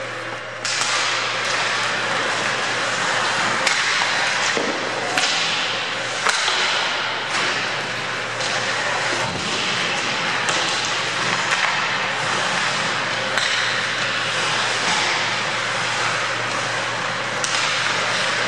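Ice hockey play: skates scraping the ice under a steady hiss, with sharp clacks of sticks and puck every second or two.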